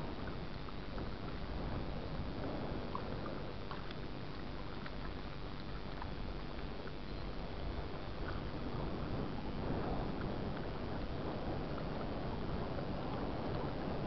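Steady wind buffeting the microphone over choppy, wind-rippled lake water, with faint small splashing ticks of the water scattered through it.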